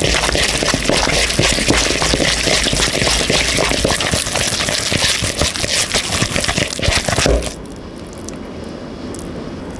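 Hand kneading and squeezing wet gyoza filling of raw minced meat, green onion and ginger in a bowl: a rapid, squelching and crackling mix that stops about three-quarters of the way through.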